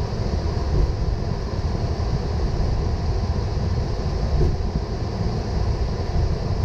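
Steady low rumble and air noise on a Boeing 777 flight deck while the aircraft taxis.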